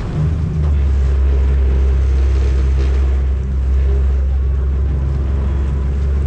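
Small passenger ferry's engine running under power: a steady low drone that comes up about half a second in and then holds even.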